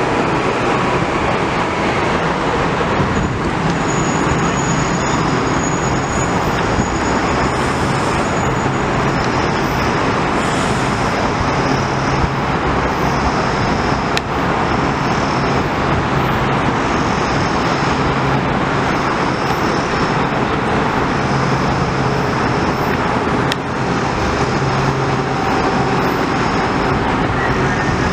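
Metro-North M8 electric railcars running at the platform: a loud, steady rumble and hiss, with faint high-pitched tones coming and going.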